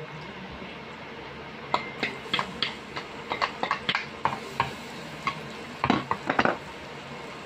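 Chopped garlic sizzling in melted butter in a stainless steel pan, with a steady hiss, while it is tipped in from a plastic bowl and stirred with a wooden spoon that clicks and scrapes against the pan many times from about two seconds in.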